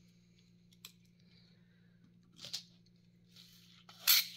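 Hard plastic clicks and clatter of a Lego grabber's jaws against loose Lego gears and bricks in a plastic tray: a few light clicks, then a louder sharp clatter near the end.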